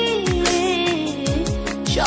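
Bengali sad pop song music: a melody line sliding slowly downward over a steady kick drum beat.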